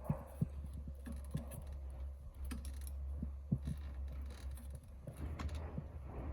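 Irregular light clicks and knocks over a steady low hum.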